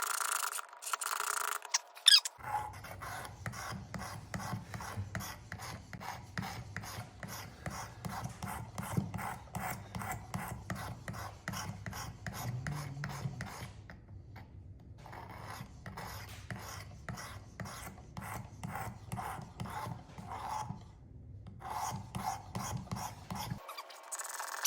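Abrasive plate of a Work Sharp Precision guided-rod sharpener stroked quickly and evenly back and forth across the edge of a steel single-bevel broadhead, a rasping rub with two short pauses. A few louder knocks come just before the strokes begin.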